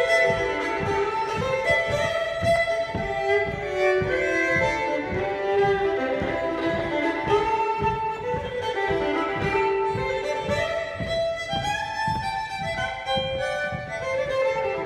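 Solo fiddle playing a lively traditional dance tune, a quick run of bowed notes, over steady low thumps about two and a half a second that keep the beat.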